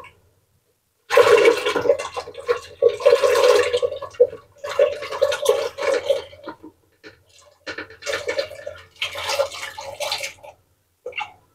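Soaked fava beans poured from a bowl into water in an aluminium pressure cooker: splashing and plopping in four or five pours with short pauses between.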